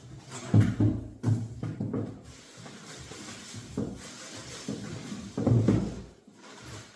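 Irregular thumps, knocks and rustling as pressure washer parts and packaging are handled and taken out of the box, loudest about half a second in and again just before the end.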